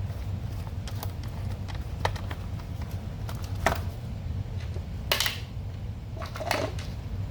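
Scattered clicks and a few louder clacks of small metal and plastic parts being handled and fitted together while reassembling a car radiator cooling fan and its motor, over a steady low hum.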